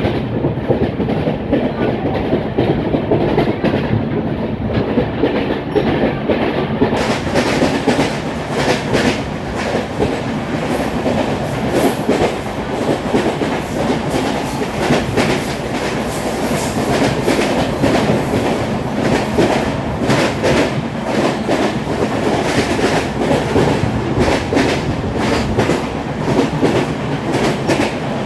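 LHB passenger coach running at speed, heard from its open doorway: a steady rail rumble with a repeated pounding beat from a flat spot worn on one of its wheels.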